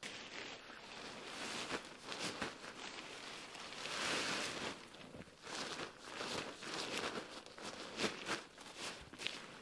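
Handling and unpacking a large hiking backpack: nylon fabric rustling and scraping as gear is pulled out, with several sharp clicks among it.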